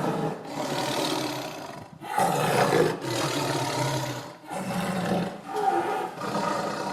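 Tiger roaring repeatedly: a run of rough roars, each half a second to a second and a half long, with brief breaks between them.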